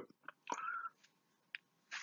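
Faint mouth noises from a man between sentences: a few short clicks and lip smacks, with one brief soft sound about half a second in.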